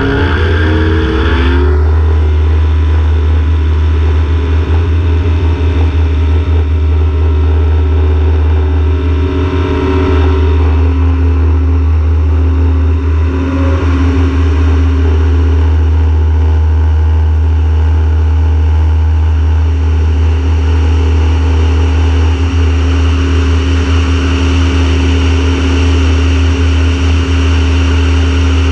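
Pipistrel Virus SW light aircraft's engine and propeller at takeoff power, with heavy wind rumble on an outside-mounted camera. The engine note shifts in the first two seconds, then holds steady through the takeoff roll and climb.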